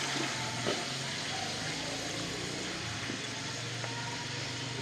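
Water poured from a steel mug into an aluminium pot of simmering potato masala, over a steady hiss.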